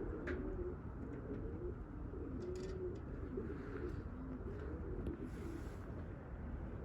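Domestic pigeons cooing, several low, warbling coos overlapping one another, over a steady low rumble.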